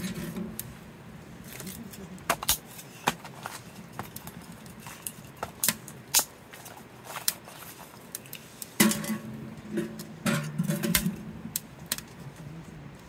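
Split firewood crackling and popping as it burns in a small wood stove's firebox, with irregular sharp snaps, some louder than others.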